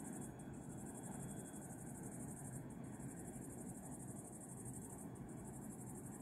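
Insects in the summer grass chirring steadily in a high-pitched buzz, over a faint low rumble.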